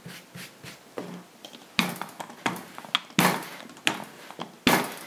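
Rolling pin pushed back and forth over a sheet of puff pastry on a floured counter: a rolling stroke about every three-quarters of a second from about two seconds in, each starting sharply and trailing off.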